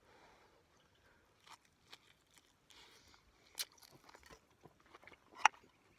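A person biting into and chewing a grilled pork chop close to the microphone, with a few sharp crunches; the loudest comes about five seconds in.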